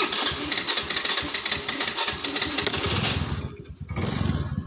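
Honda scooter's small single-cylinder four-stroke engine running: a hissier, higher sound for about three seconds, then a lower, steady pulsing idle.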